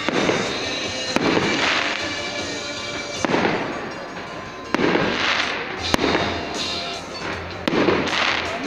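Aerial fireworks shells bursting overhead, about six loud bangs spaced one to two seconds apart, each trailing off over about a second.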